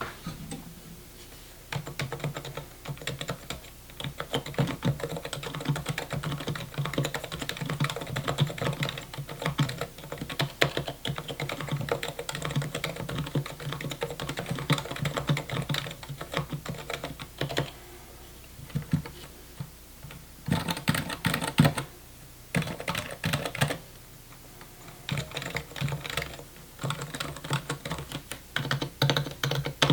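Typing test on a keyboard built with R2 damping and a travel sheet: a steady run of quick key presses, broken by short pauses about two-thirds of the way through, then resuming in bursts.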